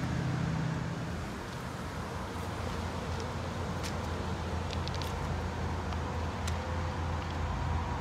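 Steady low rumble of road traffic or running engines, with a few faint clicks about halfway through.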